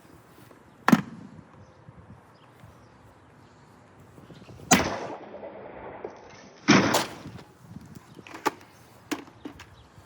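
A large hand-forged Damascus knife chopping: five sharp strikes spread a second or more apart, the second and third louder, each with a short ringing tail.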